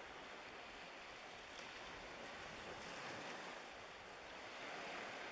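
Faint, even wash of small waves lapping along the shore, swelling slightly a couple of times.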